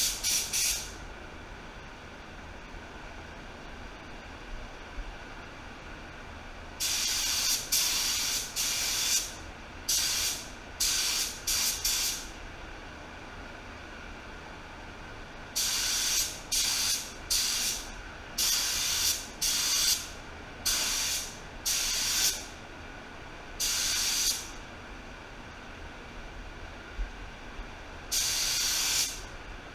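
Paint spray gun hissing in a dozen or so short bursts, each under a second, in clusters with pauses between, as a heavy metallic base coat is sprayed in passes onto motorcycle parts.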